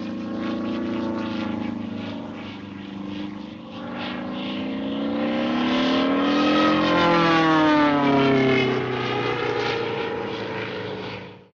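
Engine drone from a cartoon sound-effects library. Its pitch climbs slowly to a peak about seven seconds in and then drops, while it grows louder to its height there and eases off again.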